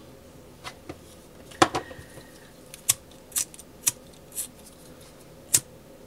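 Sharp clicks and taps of small hand tools being picked up and worked on a tabletop, about eight in all. The loudest, about one and a half seconds in, leaves a brief thin ring. The last ones come as a disposable lighter is brought up to heat-seal a ribbon end.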